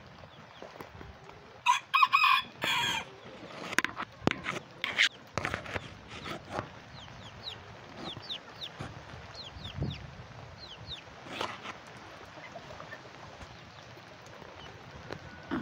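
A bantam rooster crowing once, about two seconds in, followed by scattered clucks and short high chirps from the flock of bantam chickens.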